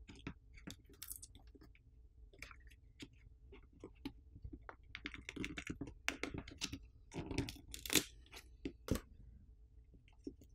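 Plastic pry tool working under a Google Pixel 5a's battery, with faint scattered clicks, crackles and scraping as the battery adhesive, softened with isopropyl alcohol, gives way. The crackling grows denser in the middle, with a few louder clicks in the second half.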